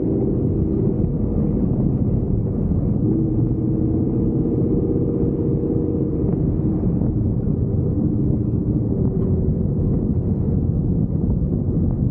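Truck driving on a dirt track: a steady engine drone mixed with a low rumble from the tyres and ground.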